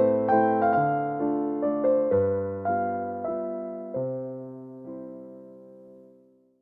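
Background music: electric piano playing a slow, gentle melody over chords, the notes growing sparser and fading out to silence near the end.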